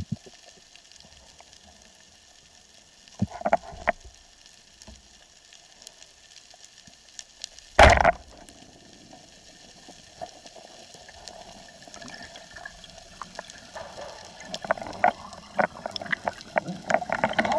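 Underwater ambience through an action camera's housing, with one sharp thump about eight seconds in: a Roisub Michelangelo 85 speargun firing its shaft. A few softer clicks come around three seconds in, and water noise rises near the end.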